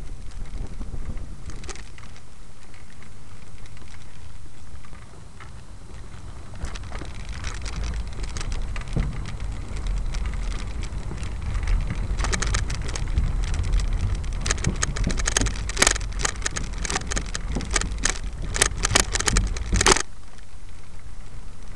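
Wind buffeting the microphone of a moving camera, a steady low rumble. From about halfway in, a dense run of sharp clicking and rattling stops abruptly shortly before the end.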